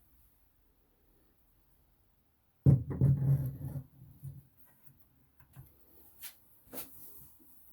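Hands working at a bathroom sink while a faucet is set in place: a sudden loud thump about three seconds in, a second of scraping and rubbing, then a few scattered light clicks and taps.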